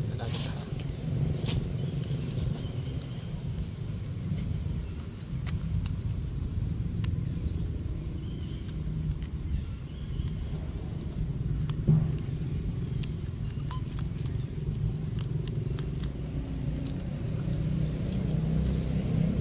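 Outdoor ambience: a steady low rumble with a high, short rising chirp repeated a little more than once a second, likely a small bird or insect. Scattered light clicks and rustles run through it, with one sharper knock about two-thirds of the way through.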